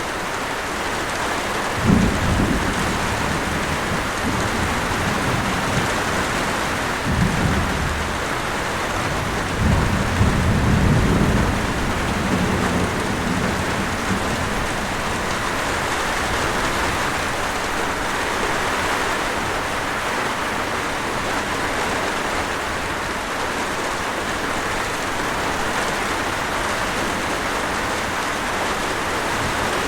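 Steady rush of a waterfall with rain falling, an even hiss. A few low rumbles break in about two seconds in, around seven seconds, and from about ten to thirteen seconds.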